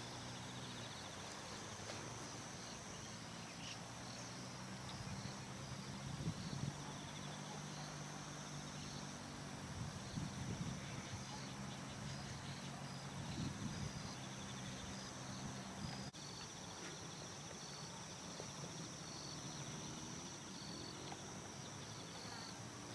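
Insects chirping steadily in a fast pulsing pattern, with a low steady hum underneath that cuts off about two-thirds of the way through.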